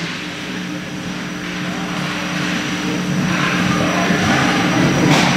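Ice rink game sound: a steady low hum under the rising scrape and rush of play on the ice, with a sharp knock near the end.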